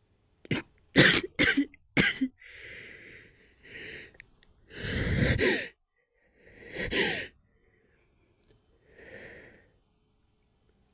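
A woman fighting back a sneeze: four quick, sharp, stifled bursts of breath in the first two seconds, then a run of heavy, noisy breaths, the loudest about five seconds in.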